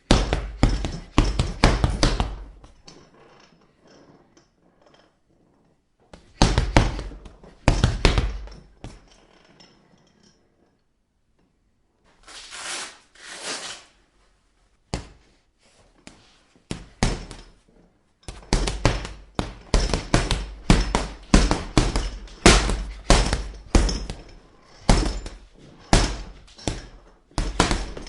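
Punches landing on a punching bag as a series of thuds: a few blows at the start, another cluster about six seconds in, then a long run of quick, evenly paced hits through the last ten seconds.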